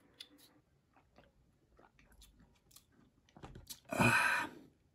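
Faint clicks of a plastic screw cap and juice carton being handled, then, about four seconds in, a loud burst of slurping and gulping as juice is drunk straight from the carton.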